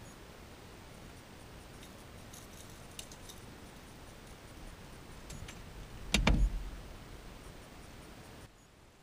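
Small metallic clinks and rattles of fishing gear being handled in an aluminum boat, then a loud clattering knock with a dull thump about six seconds in.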